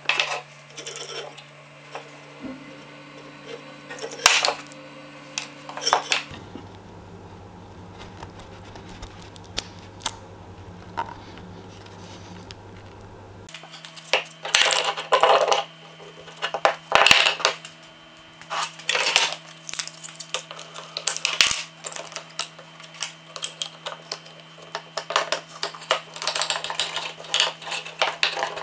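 Handling sounds at a woodworking bench: short knocks and metallic clinks of oak pieces and steel F-clamps being set down, fitted and tightened, sparse at first and much busier in the second half. A faint steady hum runs underneath.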